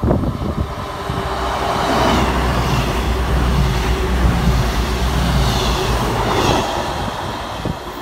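Class 221 Voyager diesel multiple unit passing at speed: its underfloor diesel engines and wheels on rail build to a loud rumble as it draws level, hold for about four seconds, then fade as it pulls away.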